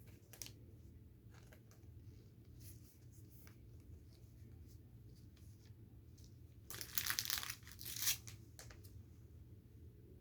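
Football trading cards being slid into soft plastic penny sleeves: faint plastic rustling and light ticks, with a louder crinkling swish about seven seconds in and a shorter one around eight seconds.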